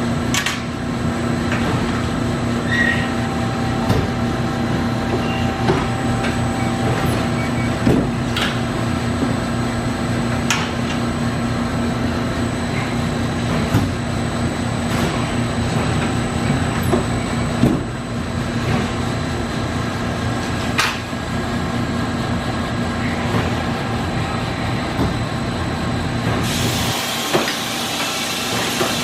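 Amada RG-1030LD hydraulic press brake running with a steady hum, a sharp knock every three to four seconds as it cycles through bends. A hiss comes in near the end.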